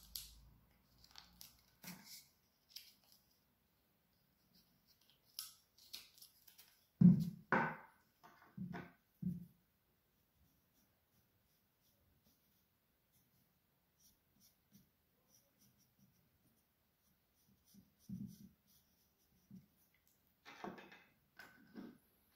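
Handwork with a whittling knife and a bark-covered branch: short scratchy knife cuts and shavings coming off the wood, with a few dull knocks of the branch and tools against the work board, the loudest a cluster of knocks about a third of the way in. Then a long stretch of faint small ticks.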